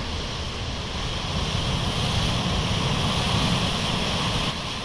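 Sea surf washing over a rocky shore, a steady rush of water with wind rumbling on the microphone, dropping a little in level near the end.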